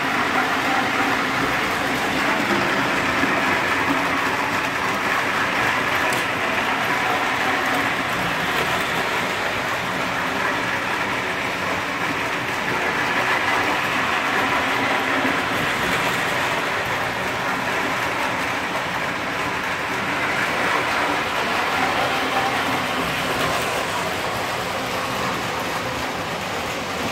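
Lionel O-27 toy electric trains running steadily around tight tubular-track loops, two trains at once: a continuous hum and rattle of the small motors and wheels on the metal rails.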